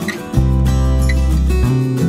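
Background music with sustained chords; a deep bass note comes in about half a second in and drops away near the end.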